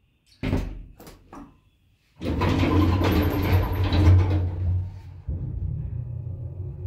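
Inside a 1994 Atlas Omega II traction elevator: a few sharp clicks as a car button is pressed. Then the car's sliding doors run shut with a loud rumble for about two seconds. A steady low hum sets in about five seconds in, as the car starts off.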